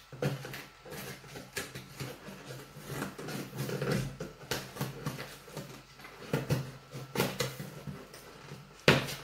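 A cardboard shipping box being worked open by hand with a small metal tool: irregular scraping, rustling and clicking of cardboard and tape, with one sharp knock near the end.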